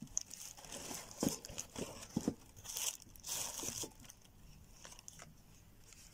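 Plastic packaging crinkling, with light irregular knocks and scrapes as microphone-kit parts such as the stand arm and pop filter are handled. Busiest in the first few seconds, fainter after.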